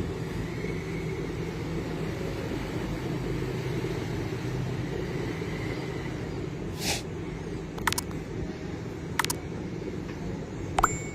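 Steady low rumble of a ferryboat's engine running, with a few sharp clicks and knocks in the second half.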